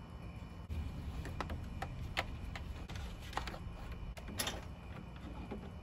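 Irregular light clicks and taps of a thin wire being pulled through a plastic honeycomb grille and handled against the plastic panel above it, starting about a second in, with the sharpest click past the middle, over a low steady hum.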